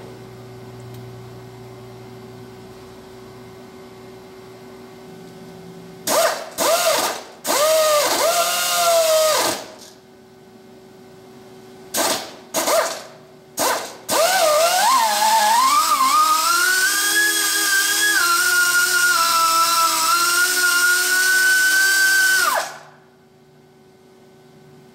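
Hand-held power drill run in several short trigger bursts, its pitch swooping up and down, then held on for about eight seconds, speeding up and settling to a steady whine before stopping abruptly. A steady low machine hum runs underneath.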